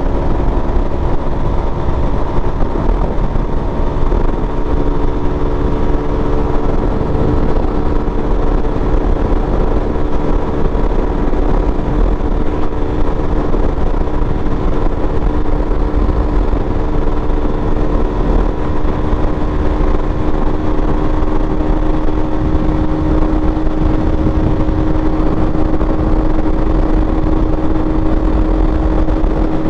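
Motorcycle engine running at a steady cruise, its tone drifting slowly in pitch, over a constant low rumble.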